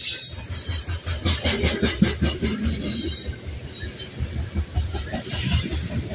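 A freight train of covered hopper cars rolling past close by: a steady low rumble of steel wheels on the rails with metallic clatter. About a second in, a fast run of clicks lasts for about two seconds.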